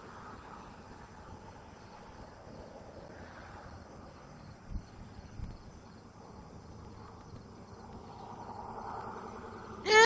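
Faint steady night background with insects, two soft low thumps about halfway through, then right at the end a short, loud, rising chirp from a female great horned owl. The short high-pitched chirp is a great horned owl contact call, used by the female to call her mate.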